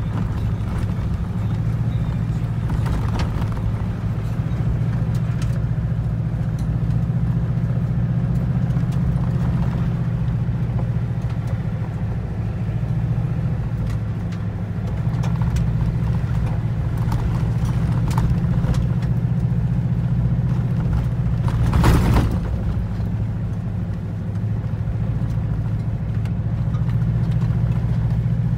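Inside a vehicle's cabin driving on a gravel road: a steady low drone of engine and tyres, with scattered small clicks from the gravel and one louder knock late on.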